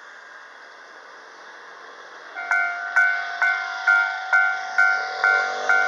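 Japanese railway level-crossing warning bell starting up after a steady hiss, about two and a half seconds in: a two-tone electronic ding struck about twice a second, each ding dying away. The bell signals that a train is approaching the crossing.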